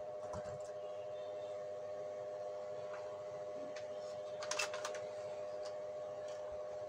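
A steady electrical hum, with a short cluster of plastic clicks and rattles about four and a half seconds in as a PLC's I/O circuit board in its plastic terminal housing is picked up and handled.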